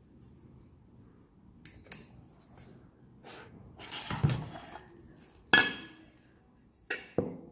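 Aluminium case of a Xiaomi Mijia Wiha 24-in-1 precision screwdriver set being handled and slid open: a couple of light clicks, a sliding scrape as the bit tray comes out of its sleeve, then a sharp metallic knock about five and a half seconds in and two more clicks near the end.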